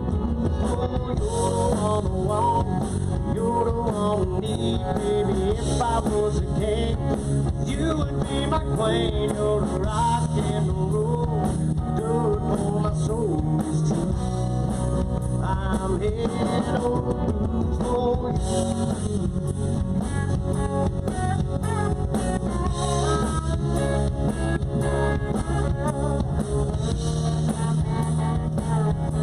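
Live country-rock band playing an instrumental passage: a lead guitar plays bending melodic lines over a steady drum beat and bass.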